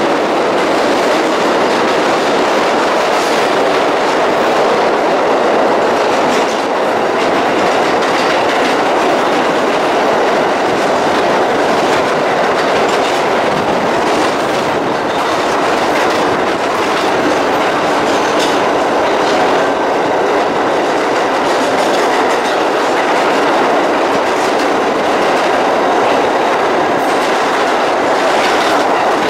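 New York City subway 6 train running at speed through a tunnel, heard from inside the car: a steady loud rumble of wheels on rails with the clickety-clack of wheels passing over rail joints.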